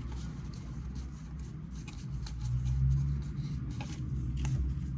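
Pokémon trading cards being handled and sorted into piles: light rustling and small clicks of card stock, over a steady low background hum.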